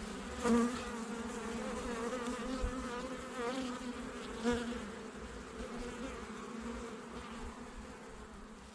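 Honeybees buzzing in flight: a wavering hum, with bees passing close to the microphone about half a second and four and a half seconds in, fading toward the end.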